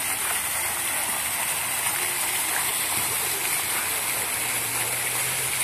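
Park fountain jets splashing steadily into a stone basin, a constant rush of falling water.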